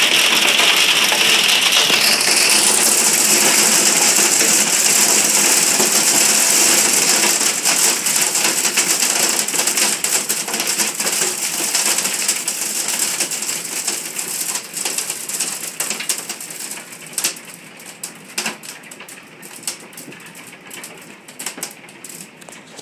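Hailstones cracking on window glass: a dense, loud rattle of hits that gradually eases over the second half into sparser, separate cracks.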